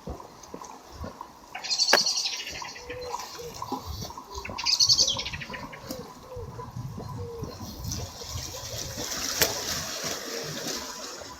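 Sea waves washing against the stone seawall and shore, with two splashing surges about two and five seconds in and a longer wash near the end.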